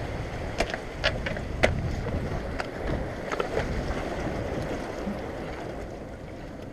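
Small waves sloshing and washing against jetty rocks, with wind on the microphone, and a few short sharp splashes in the first couple of seconds.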